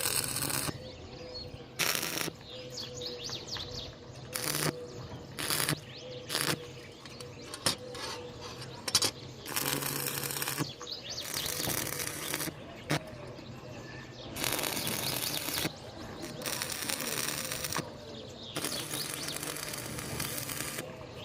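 Birds chirping in the background, broken by about a dozen short, harsh bursts of noise from metalwork, each lasting up to about a second.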